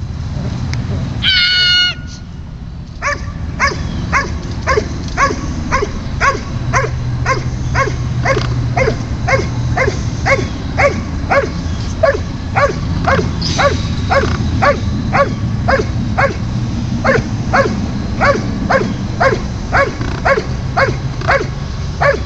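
Dobermann barking steadily and rhythmically at about two barks a second: the guarding bark of the Schutzhund protection phase, held at the helper after the dog has let go of the sleeve. About a second in, before the barking starts, there is a brief loud high-pitched call.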